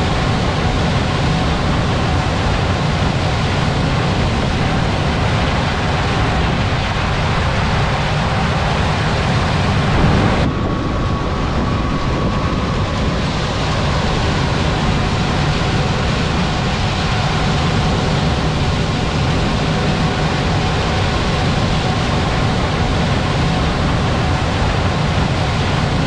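Tractor and field machinery running steadily under load. The engine and machine noise changes abruptly about ten seconds in.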